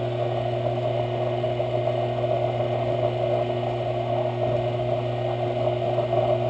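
Sherline metal lathe motor running steadily at high speed while a round hand file is held against a spinning brass rod, giving an even rasping scrape over the motor's steady hum as the file cuts a deepening groove.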